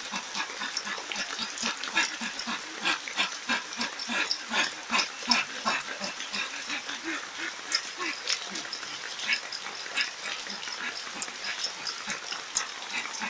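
A man breathing hard and fast, short forceful breaths with voiced grunts and cries, about three a second, as in a 'fire breath' pranayama exercise. Rain falls steadily behind.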